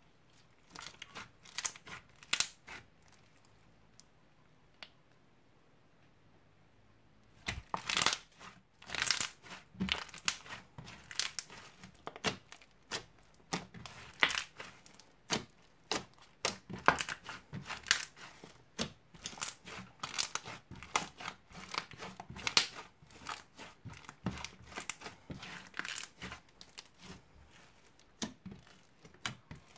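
Crunchy slime with small beads mixed in, squeezed, stretched and pressed by hand, crackling and popping in quick irregular clicks. A few scattered pops at first, a pause of a few seconds, then dense crackling from about seven seconds in.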